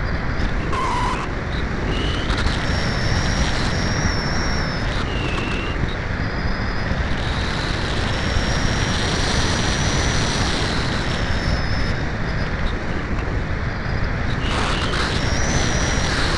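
Steady rush of air over the microphone of a keychain camera mounted on a Cularis RC glider in flight, with thin high whines that drift in pitch and come and go.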